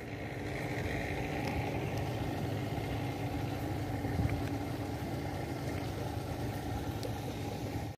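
An engine running steadily at idle, a low hum that stays even throughout.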